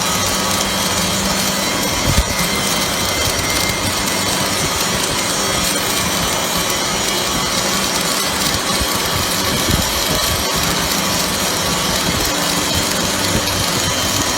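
MIG/MAG welding arc from a 500 A welding machine, sizzling and crackling steadily without a break, over a low electrical hum.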